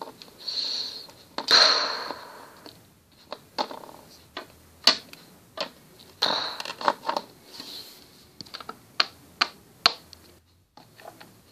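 Plastic toy figures and small props being handled and moved about: irregular clicks and light knocks, with a few short scraping rustles.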